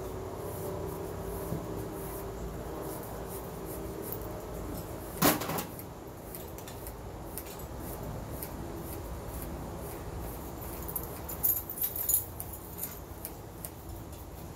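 A single sharp knock about five seconds in, then a short cluster of light clicks and rattles near the end, over a steady low hum.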